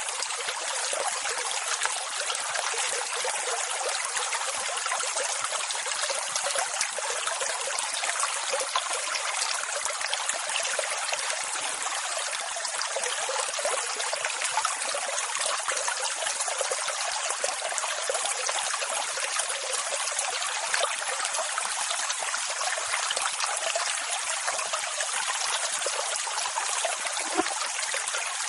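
Rushing water sound from an ocean-waves sleep recording: a steady, even hiss with no bass and no swell or break of separate waves.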